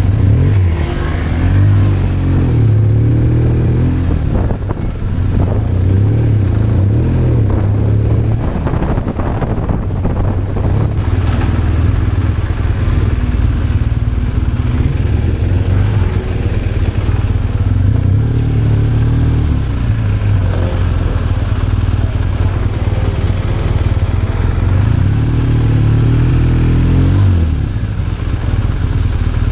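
BMW R1200RT's flat-twin engine running under way, its pitch rising and falling several times as the bike speeds up and slows down.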